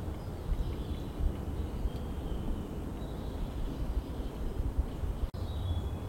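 Faint birdsong, thin high whistled phrases coming and going, over a steady low rumble.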